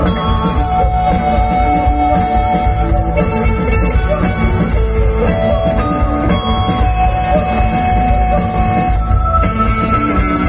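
Indie rock band playing live through a festival PA: electric guitar, bass guitar and drum kit, in an instrumental passage without singing.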